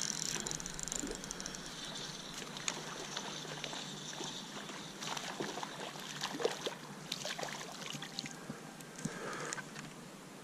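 Splashing and trickling water with scattered sharp ticks: a hooked smallmouth bass thrashing at the surface of a shallow river as it is played in and hand-lined close.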